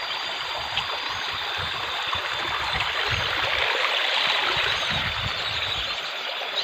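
River water flowing, a steady rushing with no break.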